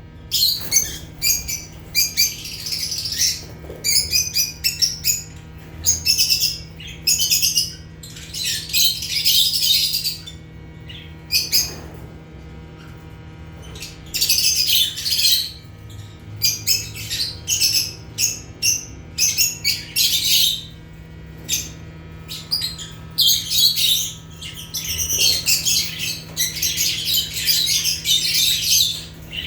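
A flock of lovebirds (Agapornis) chirping and squawking in rapid, shrill, overlapping calls. The calls come in busy bouts broken by brief lulls.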